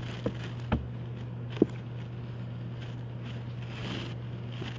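Trading cards being handled and set down on sorted piles on a table, a few light clicks and taps in the first two seconds, over a steady low hum.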